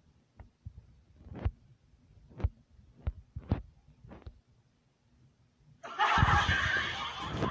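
A handful of short, soft, low thuds, spaced about a second apart, then about six seconds in a loud, harsh, noisy sound starts suddenly.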